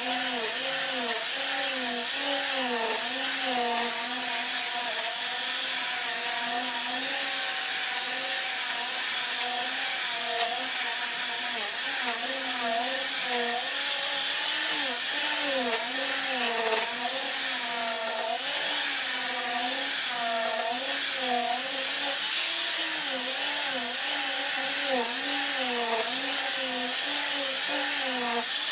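Handheld electric sander running against an ipil hardwood sofa frame, the motor's pitch wavering up and down about once a second as it is pushed back and forth under load.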